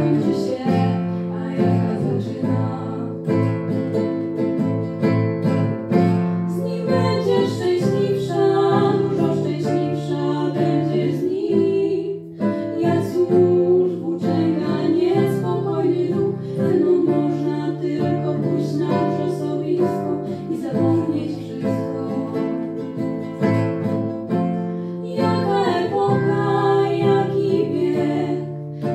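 Live duet of guitar and viola: the guitar plucks a steady accompaniment under a sustained, wavering viola melody.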